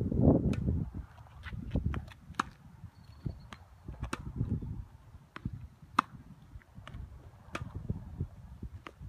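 Tennis balls struck by rackets and bouncing on a hard court during a rally: a string of sharp pops and thuds, the loudest about six seconds in. A low rumble comes and goes between them.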